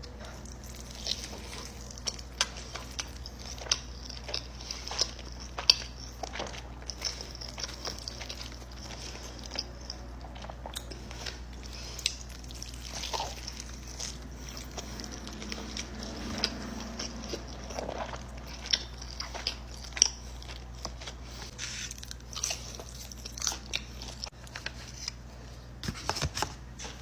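Close-miked eating: a person biting and chewing food, with frequent short crunches and wet mouth clicks scattered irregularly, over a steady low hum.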